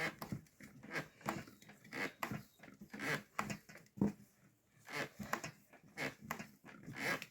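Bread dough being kneaded by hand: sticky squelches and soft slaps of the dough against the work surface, irregular, about two a second.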